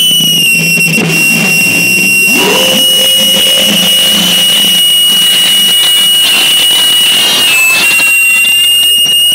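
Loud electronic noise music from effects pedals and an amplifier: a steady high whine, with a lower tone that slides up about two and a half seconds in and holds.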